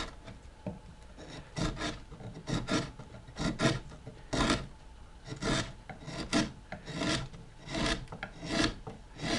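Hand wood-carving chisel cutting across the grain of a pine board: a series of short scraping cuts, about one or two a second, each peeling off a shaving. The chisel cuts cleanly across the grain.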